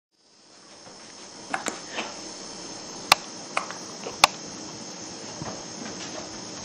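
A baby hiccupping: short, sudden hics, the two loudest about a second apart, over a steady high-pitched whine.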